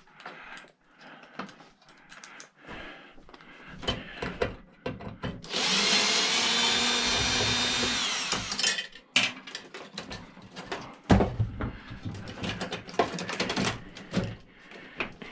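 Power drill with a bit extension running steadily for about three seconds, backing out the screws that hold a microwave's magnetron, its pitch dropping as it winds down. Scattered clicks and knocks of metal parts being handled come before and after.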